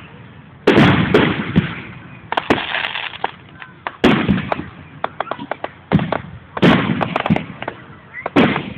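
Aerial fireworks bursting overhead: about five heavy booms, each trailing off in an echo, with a quick run of crackling pops in the middle, heard through a phone's microphone.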